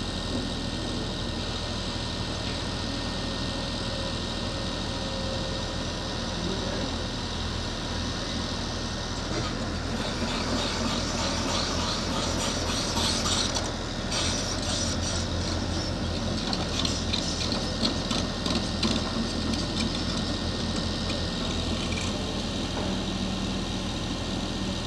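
Backhoe loader's diesel engine running steadily. From about ten seconds in, a dense, irregular clattering and scraping of metal joins it and goes on to the end.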